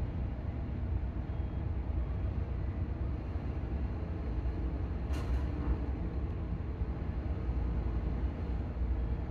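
Steady low engine rumble, with a single sharp knock about five seconds in.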